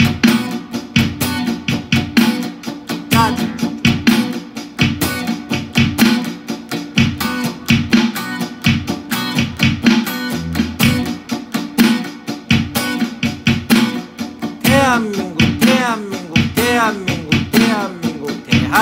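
Electric guitar strummed in a steady, fast rhythm of sharp, percussive strokes, played as a strumming practice drill.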